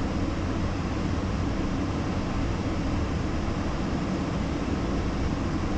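Steady in-flight cockpit noise of an Embraer Phenom 300E business jet: an even rushing of airflow and engine noise from its twin turbofans, heard inside the cockpit, strongest in the low range and unchanging throughout.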